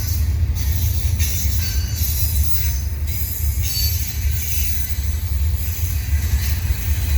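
Freight train cars rolling past with a steady low rumble, while high-pitched wheel squeal comes and goes.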